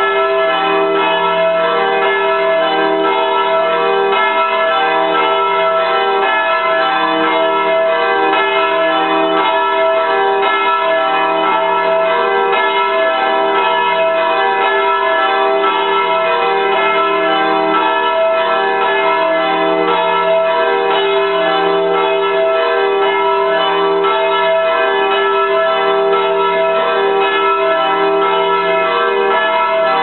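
Several church bells pealing together, a continuous ringing wash of overlapping bell tones.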